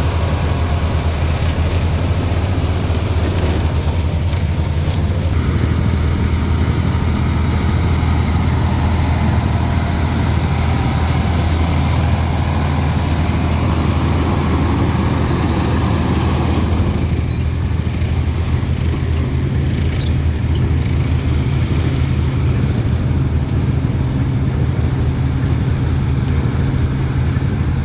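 Tractor engine running steadily with a low drone, heard close up while pulling a corn picker. The higher-pitched clatter thins out about seventeen seconds in.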